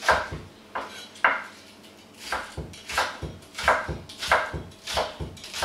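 Cleaver chopping spring onions on a wooden chopping board: a series of sharp knocks of the blade on the board, about two a second, a little uneven.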